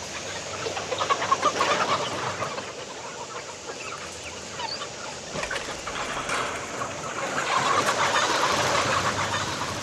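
A large flock of broiler chickens inside a chicken house, clucking and cheeping in a dense, continuous chatter of many overlapping short calls. It grows louder about a second in and again near the end.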